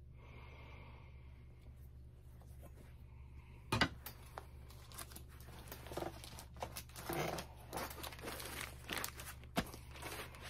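Stack of vinyl LPs in plastic sleeves being moved and handled: irregular rustling and crinkling, with a sharp knock about four seconds in and another click near the end.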